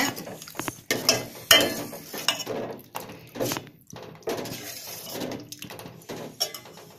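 Steel ladle stirring a watery sambar in a stainless steel pot, clinking and scraping against the pot's sides and bottom at irregular intervals, with one louder clank about a second and a half in.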